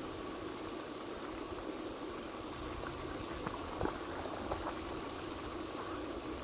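Steady splashing hiss of a lake's spray fountain, with a few short faint clicks about halfway through.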